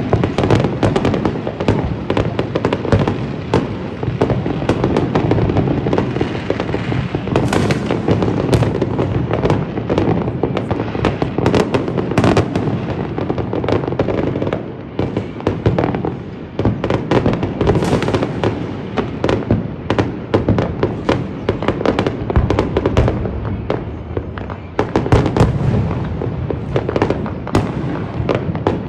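Fireworks and firecrackers going off in a dense, continuous barrage of bangs and rapid crackling, with no pause.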